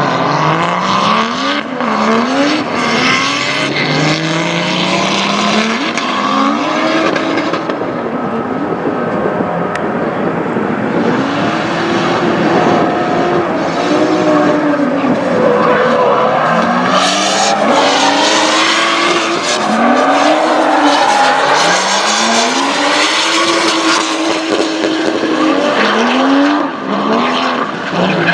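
Drift cars on track, engines revving up and down over and over, the pitch sweeping up and dropping every second or two, with tyres squealing as they slide sideways. The tyre noise is loudest a little past halfway.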